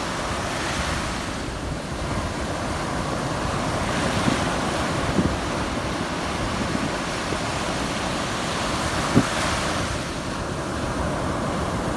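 Caribbean sea surf: waves washing in, the rush of water swelling and easing every four to five seconds, with a few low buffets of wind on the microphone.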